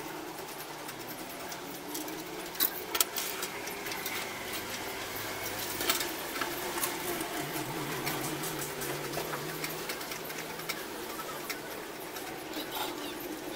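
A few sharp clicks and taps from handling a TV Yagi aerial's metal rod elements and clamps, the loudest about three seconds in, over a steady low background hum.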